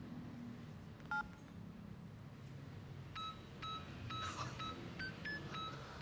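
Mobile phone keypad beeping as its buttons are pressed: a single short beep about a second in, then a quick run of key beeps from about three seconds in, roughly two or three a second, mostly at one pitch with a few higher.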